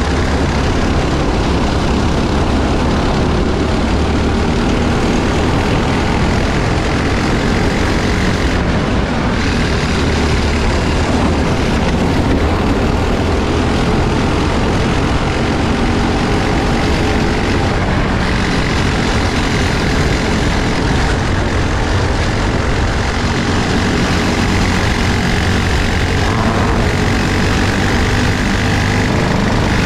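Briggs & Stratton LO206 four-stroke kart engines running at racing speed, heard onboard with road and wind noise. The note stays steady, with brief dips about nine and eighteen seconds in.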